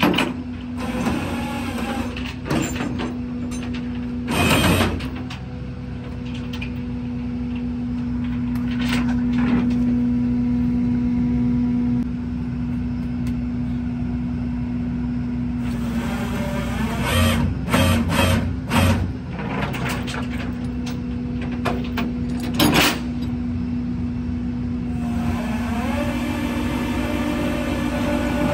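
Flatbed tow truck's engine running with a steady low hum while the wrecked car is secured on the bed, with scattered metal clanks and rattles, a cluster of them a little past the middle.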